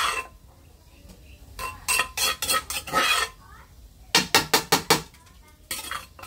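A metal spatula clinking and scraping against an aluminium cooking pot, in quick runs of sharp knocks.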